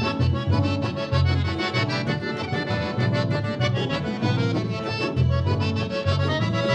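Accordion-led instrumental passage of a gaúcho vaneira played by a band, over a steady bouncing bass line.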